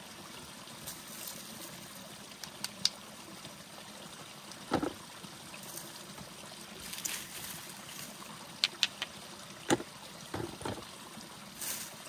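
Spring water pouring steadily from a spout into a bucket, a constant trickling hiss. A few sharp knocks and rustles as stones are gathered from the leaf litter, the loudest about five and ten seconds in.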